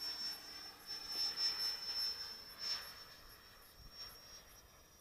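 Model EL-39 jet flying past, its engine a thin, steady high whine that sinks slightly in pitch and fades as it moves away.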